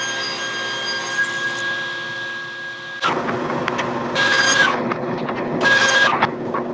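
Table saw running with a steady whine, then cutting through a zebrawood board to rip a straight glue edge. About three seconds in the sound turns suddenly louder and rougher, surging three times as the blade goes through the wood.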